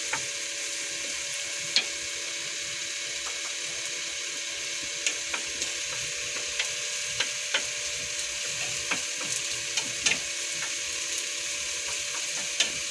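Minced garlic sizzling steadily in hot oil in a pan, browning toward golden, while a wooden spatula stirs it with irregular scrapes and sharp taps against the pan.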